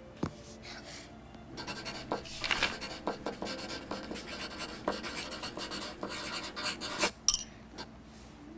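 Handwriting on paper: a writing implement scratching in quick short strokes for about five and a half seconds, starting a second or two in and stopping about a second and a half before the end.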